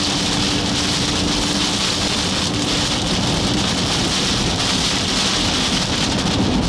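Heavy rain from a severe thunderstorm beating on a car driving through it, heard inside the cabin as a loud, steady hiss over low road rumble.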